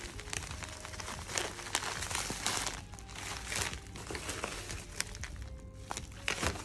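Bubble wrap crinkling and crackling as bubble-wrapped packs are handled and lifted out of a cardboard box, with irregular sharp crackles throughout.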